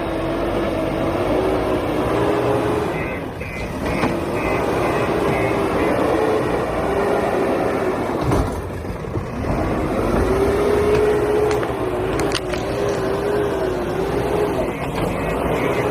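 JCB 3DX backhoe loader's diesel engine running under digging load, with a whine that wavers in pitch and two brief dips in engine note as the load eases.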